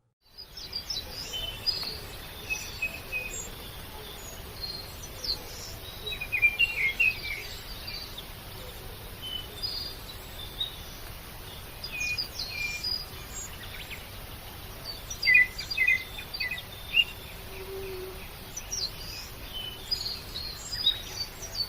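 Small birds chirping: short, scattered calls that come in clusters and then thin out, over a steady background hiss.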